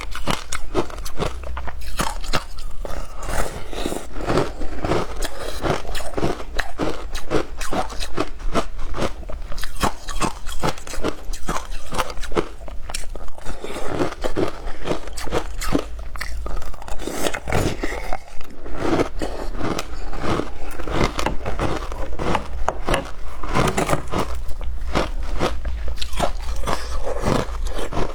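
Frozen passion fruit shaved ice being bitten and chewed, with rapid, continuous crisp crunching and crackling of ice between the teeth.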